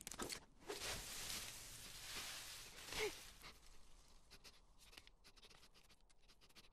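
Cartoon sound effects: a rushing whoosh lasting about two seconds as an animated squirrel darts past, a short falling squeak about three seconds in, then faint scattered ticks and rustles.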